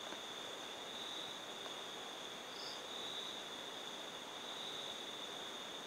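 Night insects chirring in a steady, high, continuous drone that swells and eases every couple of seconds, over a faint hiss.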